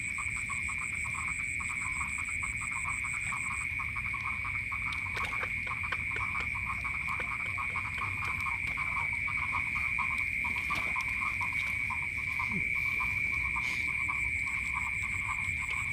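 Night chorus of frogs in the paddy fields: a dense stream of quick croaking pulses over a steady, high-pitched insect trill.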